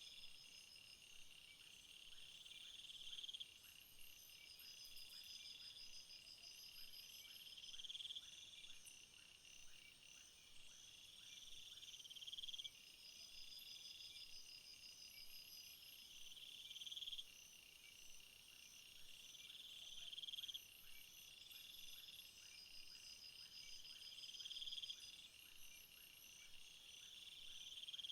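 Faint chorus of summer meadow insects. One high song swells for about two seconds and cuts off sharply, repeating about every four seconds, over several steady, higher, pulsing trills.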